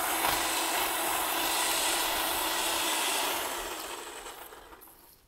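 Handheld power saw running steadily as it cuts back overgrown vines. Its motor noise dies away over the last couple of seconds.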